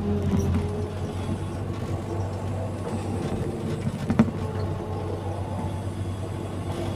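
Excavator's diesel engine running steadily under work, a low even drone, with a single sharp clank about four seconds in.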